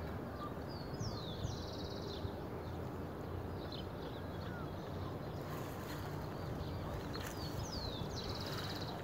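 Outdoor birdsong over a steady low background rumble: a high note sliding downward and then a fast trill, given twice about six seconds apart, with a few short chirps in between.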